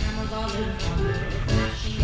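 Live band music with upright double bass, drum kit and keyboard, and a woman singing in a jazzy style.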